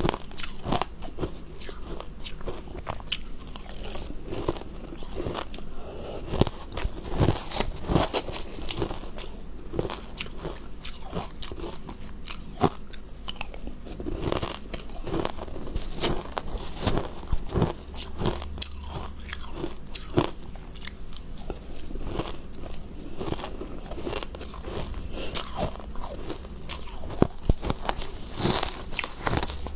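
Close-up crunching and chewing of crushed ice, bitten off a metal spoon, with irregular sharp crunches throughout and the spoon scraping into the bowl of ice between bites.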